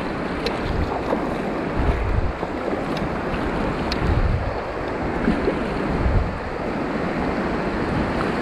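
Choppy river water rushing and splashing around a kayak's hull, with wind buffeting the microphone in uneven gusts.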